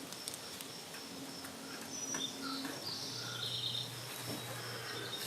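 Quiet outdoor background with faint bird chirps and a few faint clicks; a low steady hum starts about three seconds in.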